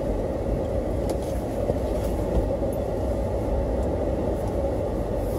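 A vehicle's engine running with a steady low rumble, heard from inside the vehicle as it slowly backs up.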